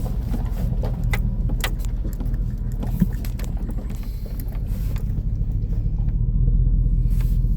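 Off-road vehicle's engine running steadily at low speed on a rocky trail, with scattered clicks and rattles and one sharp knock about three seconds in.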